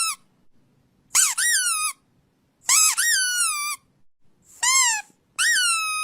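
A series of five high-pitched squeals, each jumping up in pitch and then sliding slowly down, with short silences between them; the last is the longest. They are played as a sound meant to get a reaction from a listening dog.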